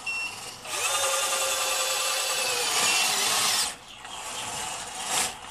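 Electric gear motors of an RC-converted Bruder D11 toy bulldozer whining as it drives. A strong burst of about three seconds starts just under a second in, then it runs more quietly, with a brief surge near the end.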